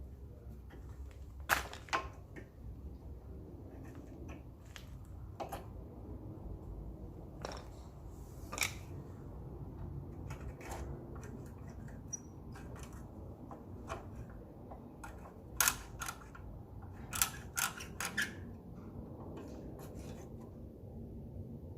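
Scattered sharp metal clicks and taps of hand tools and brake caliper parts, several in quick pairs and clusters, as the brake pad retaining screws are refitted, over a low steady background hum.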